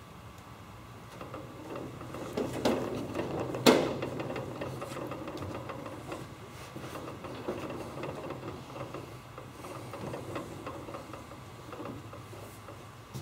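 Shuffling, rubbing and bumping of a person clambering out of a small aluminium homebuilt-aircraft cockpit, hands and body pressing on the thin sheet-aluminium fuselage skin. A sharp knock comes about three and a half seconds in.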